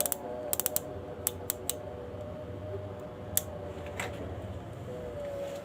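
Air rifle scope's windage turret being turned by hand: a string of sharp detent clicks in the first two seconds, then two single clicks later, as the sight is shifted left while zeroing.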